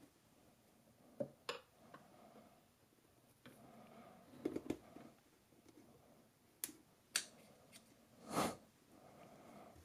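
Faint scattered clicks and taps of a flex-head ratchet's small metal parts being handled and fitted together, with a louder brief rustle near the end.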